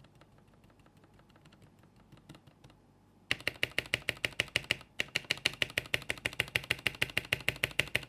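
Keyboard spacebar on a lubed, Holee-modded stabilizer being tapped rapidly, about eight clicks a second, starting about three seconds in after a few faint ticks, with a brief pause near the middle: a test of whether the stabilizer still rattles.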